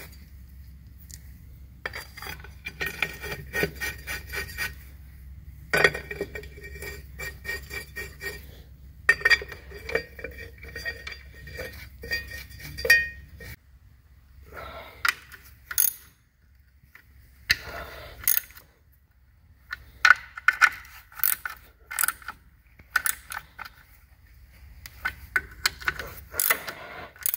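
Hand socket ratchet clicking in quick runs as the bolts of the cover plate over the injection-pump drive gears are turned in, with small metal clinks of the bolts and tools. A low background hum stops about halfway through.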